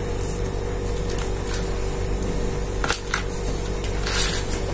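Steady background hum, with two light clicks about three seconds in and a short rustle near the end.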